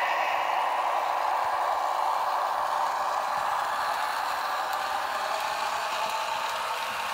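Two Märklin HO-scale ALCO Union Pacific model diesel locomotives, both powered, running with a freight train: a steady whir and rattle of motors and wheels on the track, its pitch drifting slightly.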